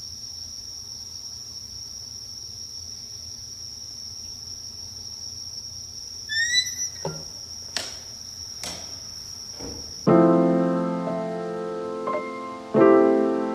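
A steady high insect trill on one note, with a few short rising chirps and a couple of knocks. About ten seconds in, bells start: a large bell struck, ringing on and fading, smaller bells struck once or twice after it, and the large bell struck again near the end.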